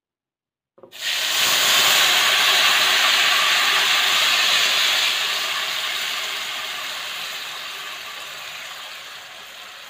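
Blended chili paste (sambal) sizzling in hot oil in a wok: a loud sizzle starts suddenly about a second in, then slowly dies down as the paste cooks.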